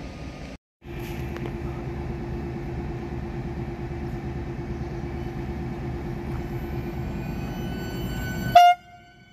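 Electric regional train standing at the platform with a steady hum from its onboard equipment, then one short, sharp horn toot near the end, after which the level drops away.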